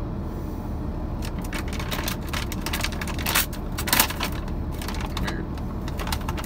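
A bag being opened and handled by hand: a rapid run of crinkling, crackling rustles from about a second in until near the end, loudest in the middle, over a steady low hum.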